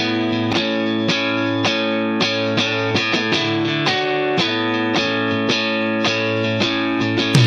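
Background music: guitar picking a steady line of plucked notes, about two or three a second.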